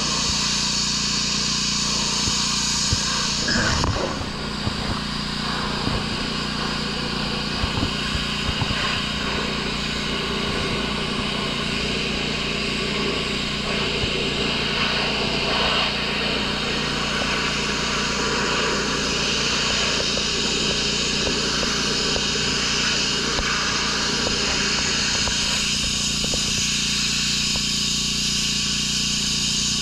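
Troy-Bilt gas pressure washer's small engine running steadily, with the water spray hissing from the gun, and a few light knocks in the first several seconds.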